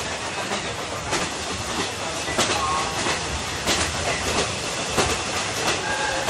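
Running noise of a JNR 50-series passenger coach heard from inside the car, with the wheels clicking over rail joints about every second and a quarter.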